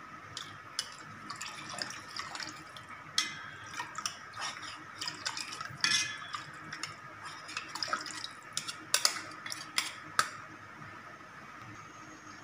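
Water splashing and dripping in a stainless-steel pot as a small cup is dipped in and poured out to rinse tom yam paste into the water, with scattered sharp knocks of the cup against the pot.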